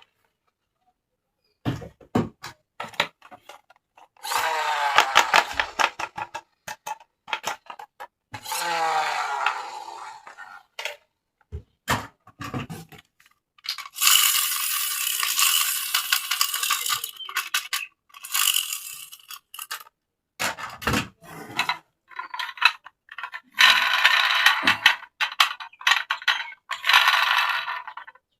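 Plastic toy packaging and parts being handled: stretches of crinkling and rustling, with many small clicks and taps in between.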